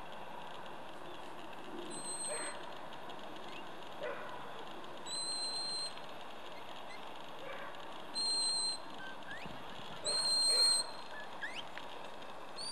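Handler's shepherd's whistle giving commands to a working Border Collie: four short, high, steady whistle blasts about two to three seconds apart, the third one warbled.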